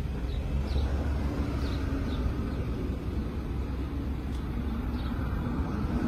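Bees buzzing around their nest, with short hums of single bees flying close, over a steady low rumble.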